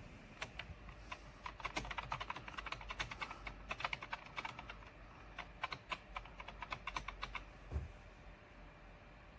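Typing on a computer keyboard: quick, irregular runs of keystrokes that stop after about seven seconds, followed by a single soft low thump.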